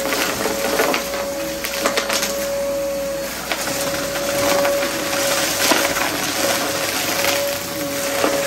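A VacMaster vacuum running with a steady whine, while crunchy debris under a rug crackles and crunches irregularly throughout.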